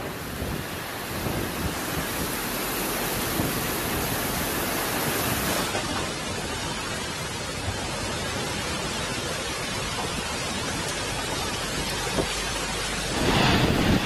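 Typhoon wind and heavy rain: a steady rushing storm noise. It changes character abruptly about six seconds in and grows louder near the end.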